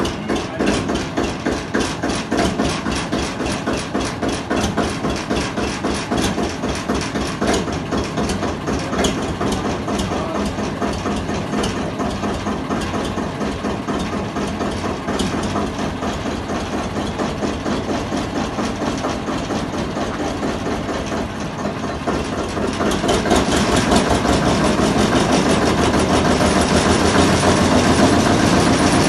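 The two-cylinder engine of a Gmeinder narrow-gauge field-railway locomotive, running with a steady, rapid exhaust beat. From about 23 seconds in it runs louder and fuller.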